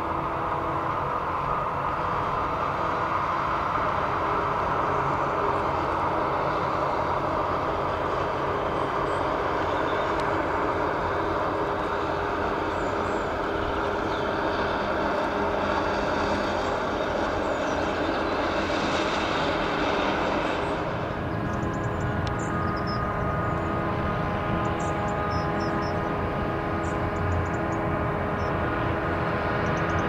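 Claas self-propelled forage harvester chopping maize: a steady engine and machinery drone. About twenty seconds in it gives way to a deeper, steady engine drone with several held tones.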